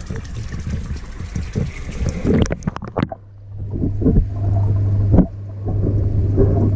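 Water sloshing and splashing against a camera at the surface of a goldfish tank for the first few seconds. Once the camera is underwater there is a steady low hum, with a few knocks and a sharp knock about five seconds in.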